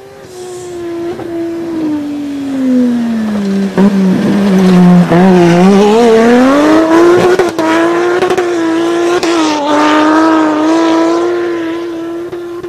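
Turbocharged 2.5-litre straight-six RB25DET engine in a Nissan Patrol being driven hard: the revs drop over the first few seconds, then climb back and hold steady. It grows louder to a peak in the middle and eases off near the end.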